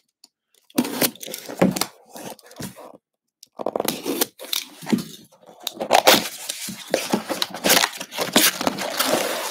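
Packing tape on a cardboard box being slit with a small box cutter in a series of scraping, tearing strokes, then the cardboard flaps pulled open.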